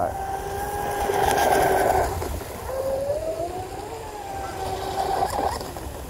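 Pro Boat UL-19 RC hydroplane's HOBBYSTAR 4074 1700KV brushless motor running flat out across the water, a steady whine. The pitch dips about two seconds in, then rises again and holds.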